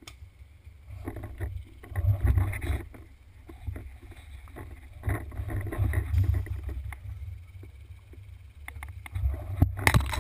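Uneven low rumble of wind and handling on a GoPro mounted on a paintball marker, swelling and fading, with scattered sharp clicks and a quick cluster of them near the end.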